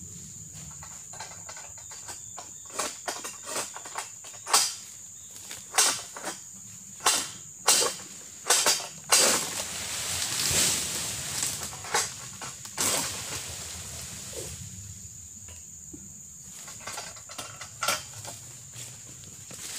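Sharp clacks and knocks from an egrek sentak, a jerk-action pole sickle, striking against the oil palm's frond bases as it is worked up into the crown. A few seconds of dense rustling come about halfway through as the pole moves among the fronds. A steady high insect buzz runs underneath.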